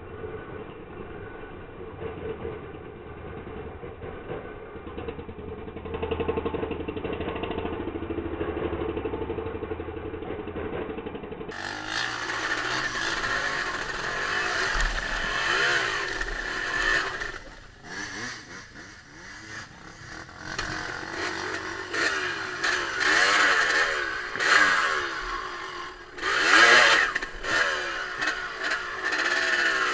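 Off-road trail motorcycle engine running and revving up and down repeatedly. The sound is dull and muffled for the first third, then turns much brighter and louder, with the loudest rev near the end.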